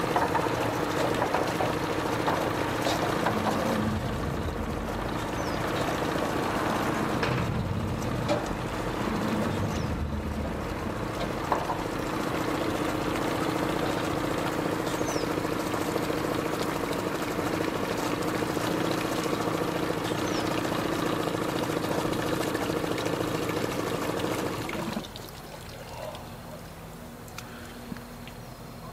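Pontoon boat's outboard motor idling steadily at the dock, then shut off abruptly about 25 seconds in.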